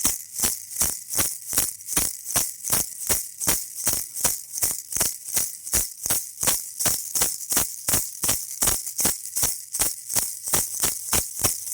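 Baby rattle shaken steadily in an even rhythm, about four shakes a second, each shake a bright, high rattle.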